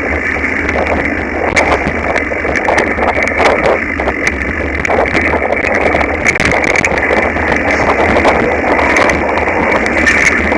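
Mountain bike rattling and jolting over a rough dirt singletrack, picked up by a handlebar-mounted camera: a steady rushing noise with frequent sharp knocks and rattles from the bike.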